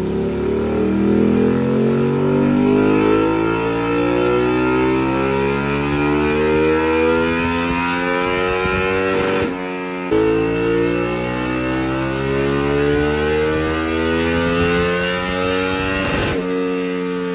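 Ducati Panigale motorcycle engine accelerating, its pitch climbing steadily, with a gear change about halfway through where the sound briefly drops off and the pitch falls, then climbs again, and another change near the end.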